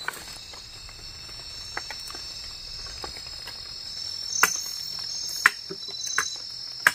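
A chorus of forest insects trilling in steady high-pitched tones, with about four sharp knocks in the second half.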